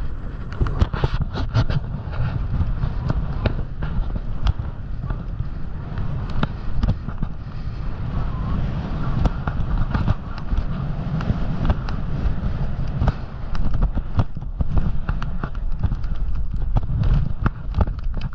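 Snowboard riding downhill: wind rumbling on the microphone, the board scraping over the snow, and many irregular sharp knocks as it rides over bumps.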